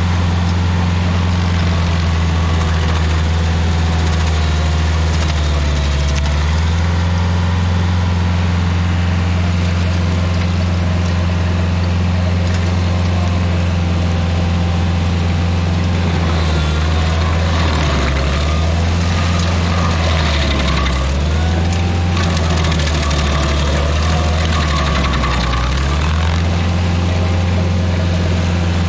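Rayco RG50 stump grinder's engine running steadily. Its pitch sags briefly about six seconds in and several more times in the second half as the cutter wheel takes load.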